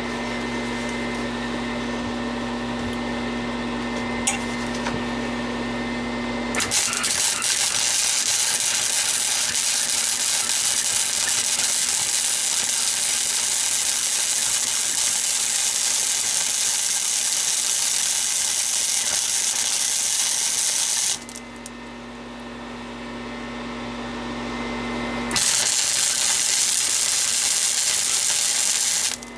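MIG welder stitching weld beads on sheet steel: a steady crackling hiss of the arc for about fourteen seconds starting about six and a half seconds in, then a shorter bead of about four seconds near the end. Between the beads a steady electrical hum is heard.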